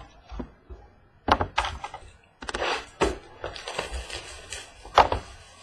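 Trading cards and their cardboard packaging being handled: a run of sharp clicks, taps and rustles, the loudest about five seconds in.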